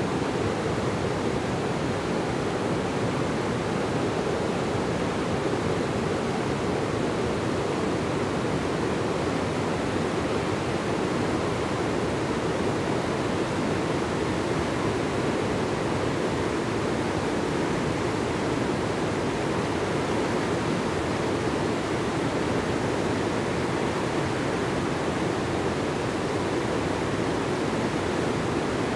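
Steady, unbroken rushing noise of flowing water.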